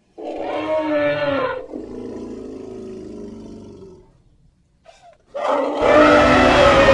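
Two animal-roar sound effects voicing a woolly mammoth. A pitched roar starts right away and trails off into a lower rumble after about a second and a half. A second, louder roar comes in a little past five seconds.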